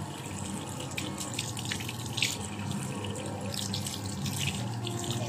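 Tap water running in a steady stream into a bathroom sink and splashing on the basin, with a gloved hand held under the stream.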